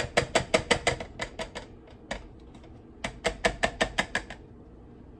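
Rapid hard clicking, about six taps a second, as a blender jar is shaken over a cup to work a thick shake out of it. One run stops a little over a second in, a single tap follows, and a second run comes about three seconds in.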